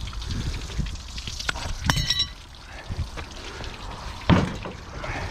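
Leftover water pouring and trickling out of a scrap hot water heater tank as it drains. A ringing metal clink comes about two seconds in, and a thump a little after four seconds.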